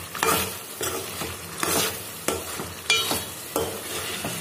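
Ladle stirring and scraping chicken pieces in masala around a metal pan, about one stroke every two-thirds of a second, over a steady sizzle of frying.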